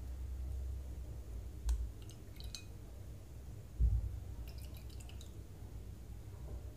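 Betadine antiseptic dripping from a small bottle into glasses of water: a few small clicks and drips, with a sharp click a little under two seconds in and a dull thump just before four seconds in.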